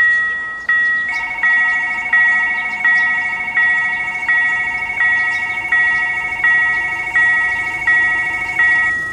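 Railroad level-crossing warning bell ringing: an electronic two-tone chime struck about every 0.7 s, each strike fading, which sounds while a train is approaching. About a second in, a second steady warning tone joins it and stops just before the end.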